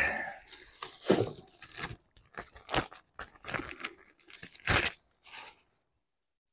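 A thick plastic bag crinkling and rustling in irregular bursts as a leather boot is pulled out of it, then stopping.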